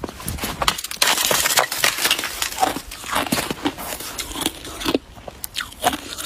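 Icicle ice crunching as it is bitten and chewed, with a dense run of crunching about a second in and scattered sharp cracks after.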